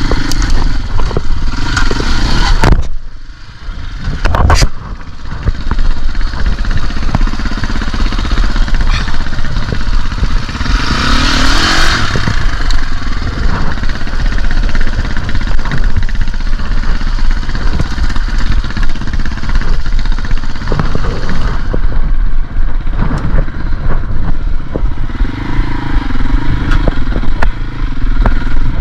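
KTM dirt bike engine running on the trail, revving up and down as the throttle opens and closes, with knocks and rattles from the bike over rough ground. The engine drops off throttle briefly a few seconds in.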